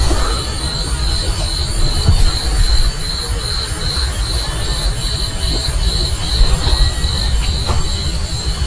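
Night insects trilling in a steady high pulsing chirp, about two to three pulses a second, over a heavy low rumble.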